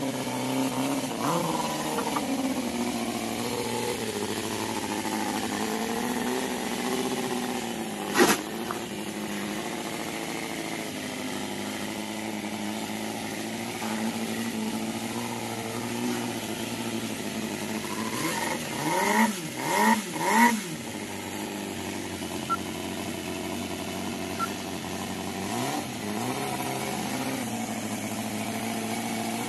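Cison inline four-cylinder four-stroke OHV model engine in an RC crawler running, its pitch wandering as the throttle is worked. About two-thirds of the way through it revs up and down three times in quick succession. A single sharp click sounds a little over a quarter of the way in.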